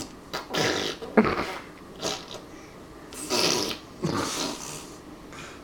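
A person blowing raspberries, the lips flapping in a fart-like 'pfff'. About five short bursts come roughly a second apart.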